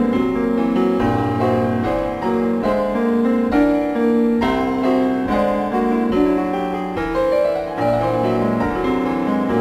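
Solo piano playing a passage from a piano suite: chords and a shifting middle line with notes changing about twice a second, and low bass notes at the start and again near the end.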